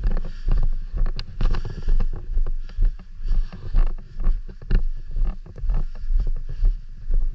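Rhythmic footsteps at a walking pace of about two a second, with wind and handling rumble on a body-worn microphone.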